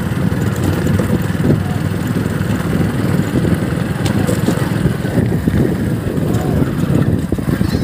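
Motorcycle engine running while the bike rides along, heard from the rider's seat as a steady low rumble.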